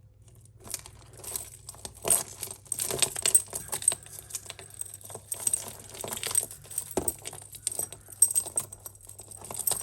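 Costume jewellery chains and pieces clinking and jingling as a tangled pile is rummaged through and pulled apart by hand: an irregular run of small metallic clicks and rattles, starting under a second in.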